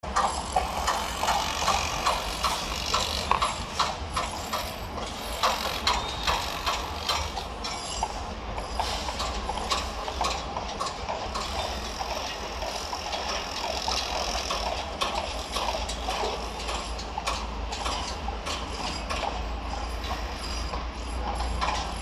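Construction-site ambience: irregular metallic clicks and clanks over a steady low rumble.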